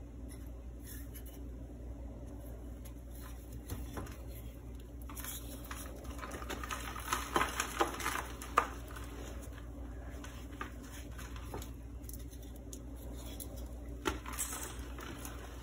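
Reformed gym chalk bars crushed and crumbled by hand: soft dry crunching and crumbling, densest in a run of sharper crunches in the middle and again briefly near the end, over a faint low hum.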